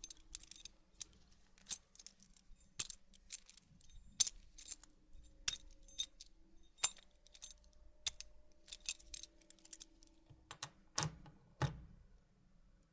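A bunch of metal keys jingling and rattling in short, separate shakes, about one or two a second, with two heavier jangles near the end that carry a dull low knock.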